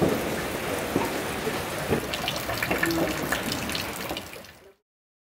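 Steady rain falling, with a few sharper knocks and splashes of drops. It fades out to silence near the end.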